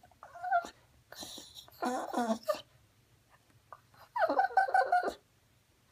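Small shaggy terrier-type dog whining in short bursts, four in all, the longest about four seconds in. It is begging for its meal.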